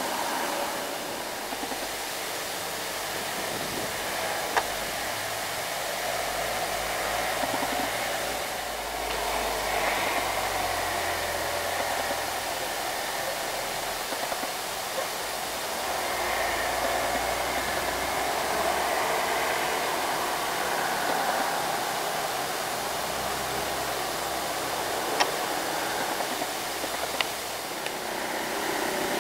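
Heavy loaded diesel cargo trucks driving past on the road: a steady engine and tyre drone with a low rumble that swells and fades as trucks go by, and a few sharp clicks.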